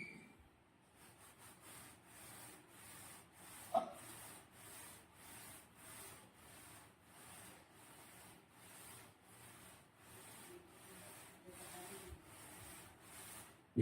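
Faint rhythmic rubbing, about two strokes a second, from hands working the slime-making materials. One sharp knock comes about four seconds in.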